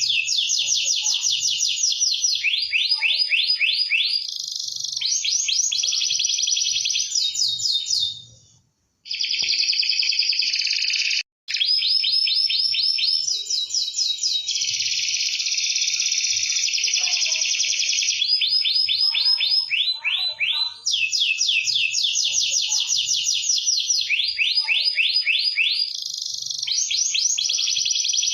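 Domestic canary singing a continuous, rapid song of fast repeated trills, switching to a new phrase every second or two. The song breaks off twice briefly, about eight and eleven seconds in.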